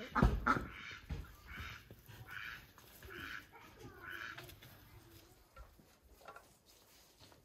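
A couple of heavy bumps, then four short, harsh animal calls about a second apart.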